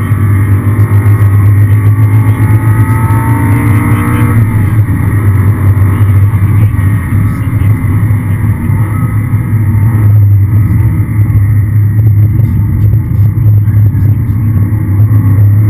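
Aston Martin V8 Vantage's V8 engine pulling hard on track, heard from inside the cabin under a steady low drone. The revs climb for about four seconds, break off at an upshift, then carry on at high load.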